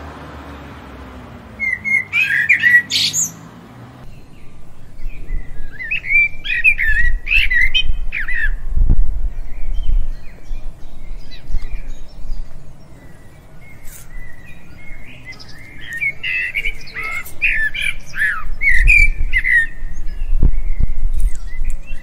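European robin singing: bouts of short, quick, varied chirping phrases with pauses between them, over a low hum that stops about four seconds in.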